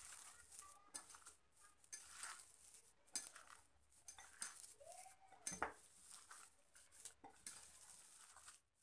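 Faint, irregular light clinks and taps of a hand against a glass bowl while mashed boiled potato stuffing with onion and spices is mixed by hand.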